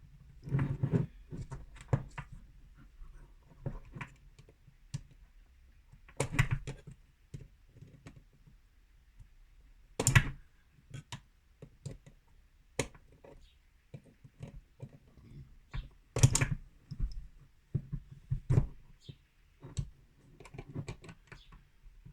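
Irregular small clicks, taps and knocks of a metal cylinder lock and its tools being handled and worked on by hand, with four louder knocks spread through.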